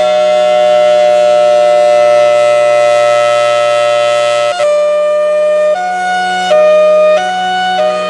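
Federal Signal Thunderbolt 1003 rotating civil defense siren sounding loudly. It holds a steady two-pitch chord, then about four and a half seconds in switches to its hi-lo signal, stepping back and forth between a lower and a higher pitch under a steady low hum.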